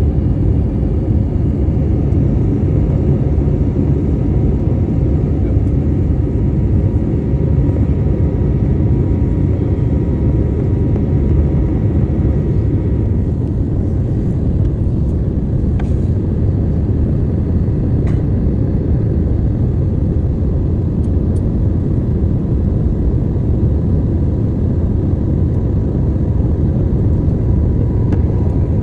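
Airliner cabin noise in flight: a steady, loud low rumble with a thin steady tone and a few faint clicks.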